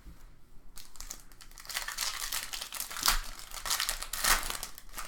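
Trading card pack wrapper crinkling as it is handled and opened, a dense crackle starting a bit under a second in and stopping shortly before the end.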